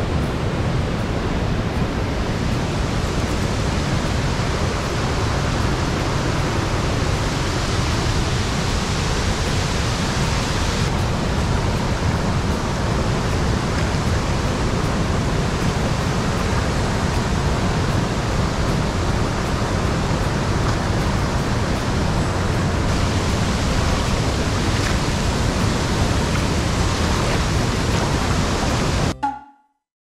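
Steady rush of a wide, many-stranded waterfall and the rippling shallow river below it. It cuts off suddenly near the end.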